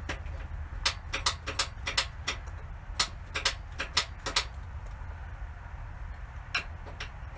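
The piezo igniter of a Buddy portable propane heater clicking as its control knob is pressed and turned to light the pilot. There are about ten sharp single clicks in quick succession, then two more near the end.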